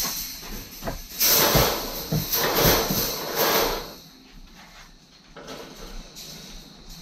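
Welded wire mesh fence panel scraping and rattling as it is pushed into place against the other panels, for about two and a half seconds, then a few faint clicks.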